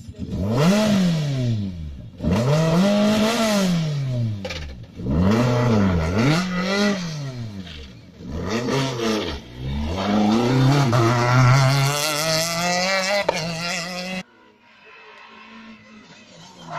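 Rally cars at full throttle, their engine notes climbing and dropping again and again through gear changes as they pass, in a run of short cut-together passes. Near the end the sound drops suddenly to a much quieter engine.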